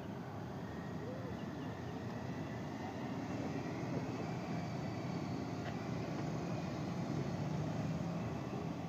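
Police motorcycles of a motorcade escort riding past in a group, giving a steady blend of engine noise that swells slightly near the end.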